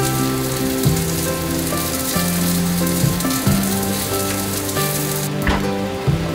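A cabbage wedge sizzling in a hot frying pan over a gas flame, with soft background music carrying slow bass notes underneath. The sizzle thins out about five seconds in.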